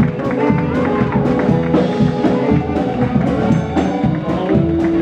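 Live blues band playing an instrumental passage: electric guitars, bass and drum kit, with a steady drum beat.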